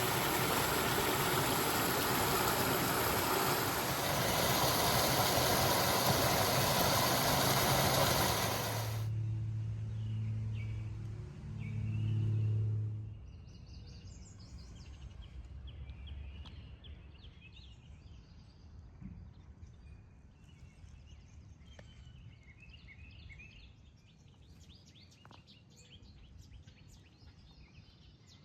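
A loud, steady rushing noise stops abruptly about nine seconds in. A low hum with a few steady tones follows for about four seconds, then quiet outdoor ambience with birds chirping now and then.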